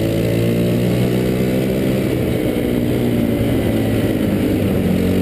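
Go-kart engine running at a steady speed, heard close up from the kart's own frame, its pitch wavering a little.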